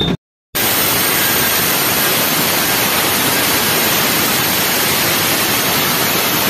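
Handheld electric marble cutter sawing through a stone slab: a loud, steady grinding hiss that starts about half a second in, after a moment of silence.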